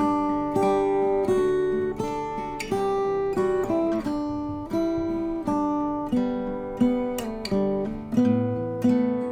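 Background music: an acoustic guitar played slowly, single notes and chords starting one after another and ringing on.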